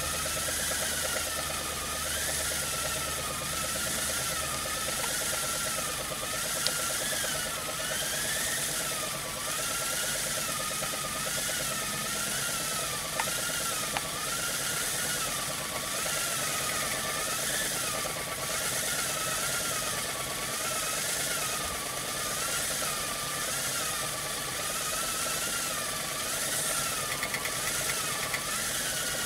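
Brass Hero's steam engine (aeolipile) spinning under steam, its jets hissing with a whistling tone that wavers up and down about once a second, over a steady mechanical buzz.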